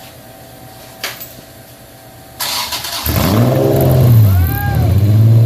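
A click about a second in, then the starter cranks a Honda 3.5 L VTEC V6 for a moment until it catches about three seconds in, on its first start-up. It is then blipped, its pitch rising and falling in repeated revs, while running with a vacuum leak.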